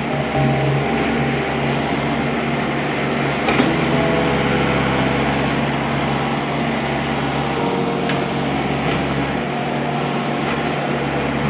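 A radio-controlled hydraulic excavator running steadily, its small motor and pump making a constant mechanical whine with tones that shift as it works. There is a brief click about three and a half seconds in.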